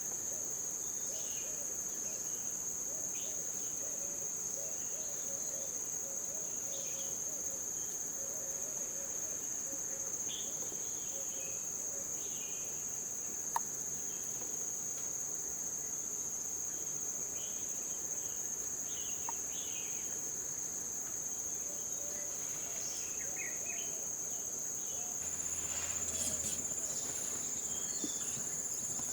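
A jungle insect chorus: one steady, high-pitched drone that never lets up, with short scattered chirps from other animals over it. Near the end a second high insect tone joins in, along with a few faint clicks.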